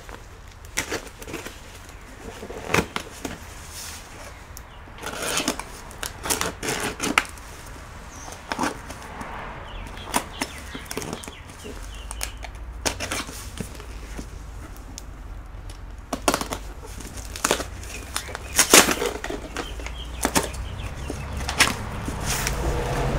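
Packaging being handled: rustling with many scattered sharp clicks and knocks.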